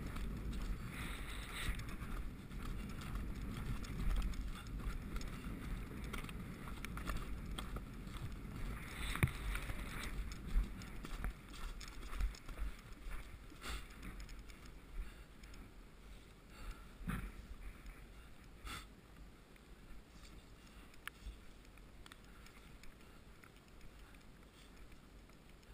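Wind buffeting the microphone of a camera worn by a rider, with muffled hoofbeats as the horse moves across turf. The rumble fades over the second half, and a few sharp clicks stand out near the middle.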